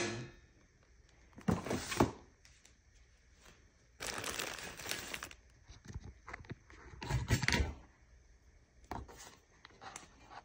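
Plastic bags crinkling and rustling in several short spells as things are rummaged through in a plastic storage drawer, with a few light knocks.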